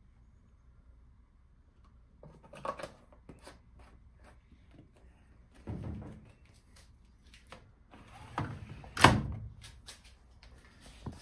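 A few plastic knocks and thuds from handling a front-load washer's detergent dispenser drawer and a liquid detergent bottle, the loudest a sharp thunk near the end.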